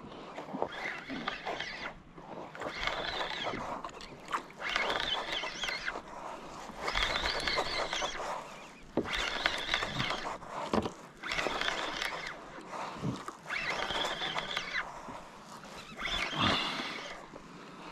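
An angler in a kayak fighting a fish with a spinning rod and reel: a noisy swish that repeats about every two seconds, with a few short knocks in between.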